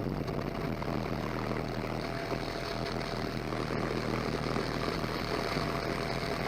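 Steady aircraft engine drone heard from aboard, with no gunfire.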